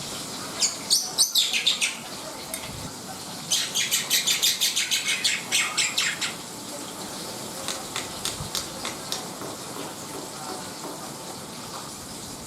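Black-winged starling (jalak putih) singing: bursts of rapid, high chattering notes, a short burst near the start and a longer run from about three and a half to six seconds in, then fainter scattered notes.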